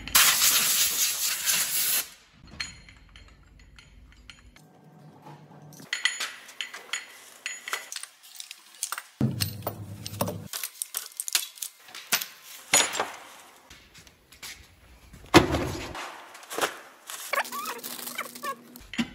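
Steel pistons on their connecting rods, from a Scania DC16 V8, clinking and knocking as they are handled and set down on a workbench. It opens with a loud hiss of about two seconds.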